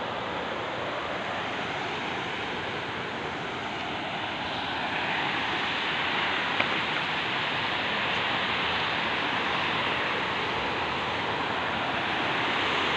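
A shallow rocky river running over rapids: a steady rush of water that grows a little louder about five seconds in.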